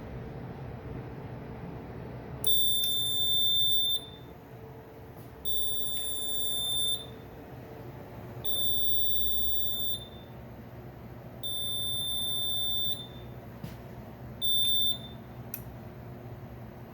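High-pitched electronic beeper of a fire alarm panel sounding five beeps, each about a second and a half long and about three seconds apart, the last one cut short. Under the beeps runs a steady low hum, with a few faint clicks.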